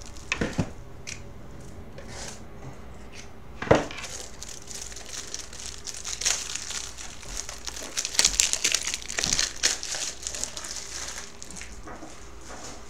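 Crinkling of a plastic wrapper handled close to the microphone, densest over the second half, after a few sharp knocks on the desk, the loudest near four seconds in.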